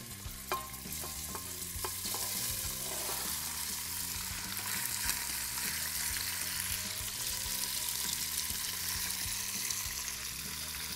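Cubed meat searing in a hot stainless steel pot on high heat with nothing added, sizzling steadily as it gives off its juices. In the first couple of seconds a few knocks sound as the meat is tipped in with tongs.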